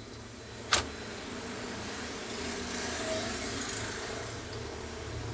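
Plastic laptop case being pried open with a thin tool: one sharp snap about a second in as a clip lets go, then steady scraping along the seam, with a low hum underneath.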